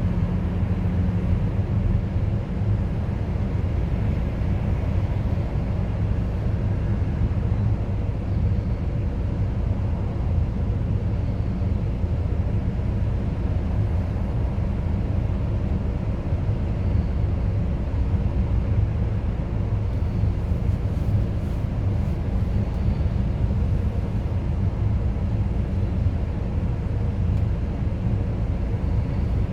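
Diesel engine of a Bobcat RTH 70.260 rotating telehandler running at a steady speed, a constant low rumble with a steady hum.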